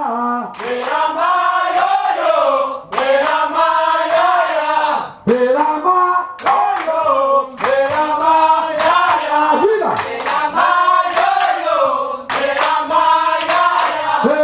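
Group of voices singing together in phrases, accompanied by steady rhythmic hand clapping.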